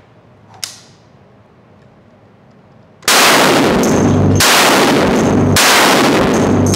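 Barrett M82A1 semi-automatic .50 BMG rifle fired three times, starting about three seconds in, one shot about every 1.2 seconds, each very loud blast reverberating in the indoor concrete range so that it runs into the next. A faint click comes just before, about half a second in.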